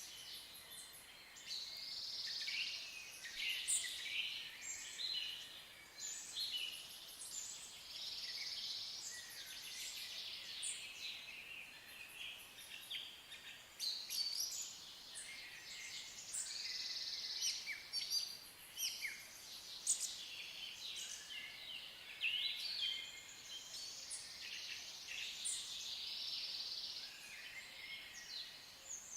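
Songbirds singing together, a dense run of overlapping chirps and trills with no pause.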